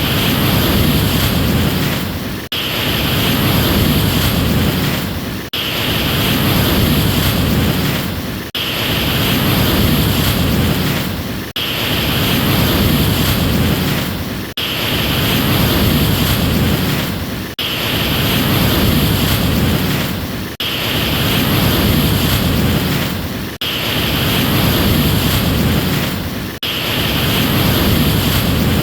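Ocean surf rushing steadily: a short stretch of wave noise looped over and over, repeating about every three seconds with a brief sharp dip at each join.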